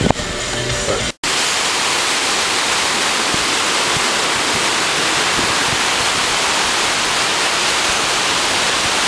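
Ocean surf breaking and churning on a rocky shore: a steady rush of water that starts abruptly about a second in.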